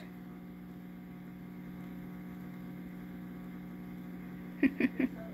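Steady low electric hum of an aquarium filter motor. About four and a half seconds in come three quick short sounds in a row.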